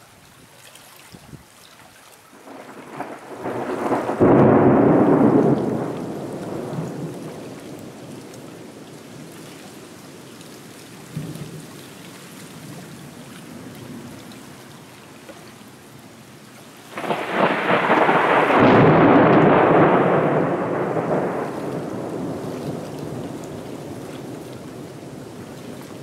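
Two rolls of thunder over steady rain. The first builds from about three seconds in and rumbles for a few seconds. The second starts suddenly about seventeen seconds in, is the loudest, and rumbles on for several seconds before fading slowly.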